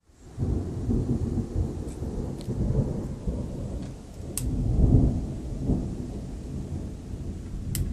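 Rolling thunder rumbling on and on, swelling to its loudest about five seconds in, with a few short sharp ticks over it.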